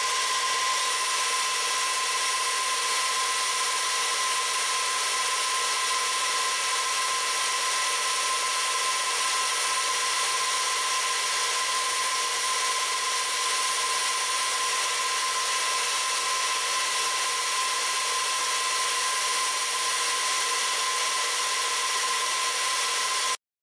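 Milling machine spindle running an end mill through a slot cut in a metal block: a steady machining whine of several fixed tones over a hiss. It cuts off suddenly at the very end.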